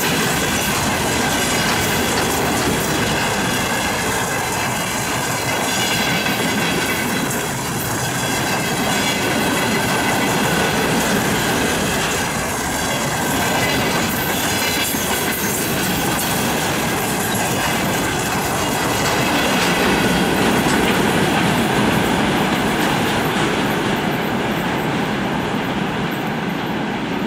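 Freight wagons rolling past on 1520 mm broad-gauge track: a steady rumble and clatter of the wagon wheels over the rails, with a faint thin squeal from the wheels. The sound grows duller near the end.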